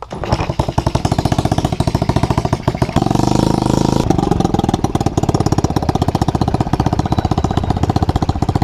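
A quad's engine fires up and idles with a rapid, even putter, getting a little louder about three seconds in.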